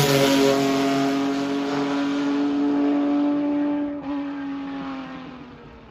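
Mazda four-rotor rotary race car engine running at high revs, a steady pitched note as the car moves away. The note sags slightly in pitch and fades over the last couple of seconds.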